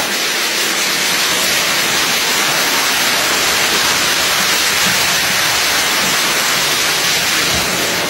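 Heavy rain and strong wind of a storm, a loud, steady rushing hiss with no separate impacts standing out.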